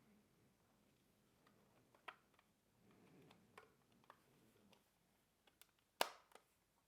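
Plastic lamp enclosure being fitted back together by hand: a few faint clicks, then one sharper snap about six seconds in, typical of a plastic snap clip engaging.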